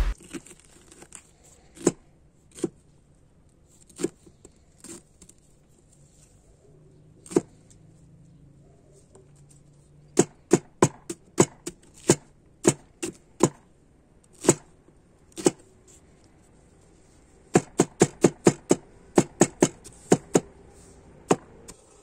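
Knife chopping red onion on a wooden cutting board. A few scattered strikes at first, then runs of quick chops in the second half, about two to four a second.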